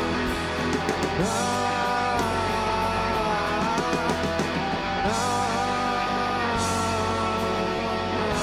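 Live rock band playing the instrumental end of a song: electric guitar holding sustained notes over bass and drums, with cymbal crashes.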